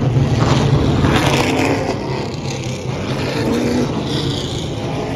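Several stock car engines running as a line of cars passes close by, with engine notes rising in pitch as they go.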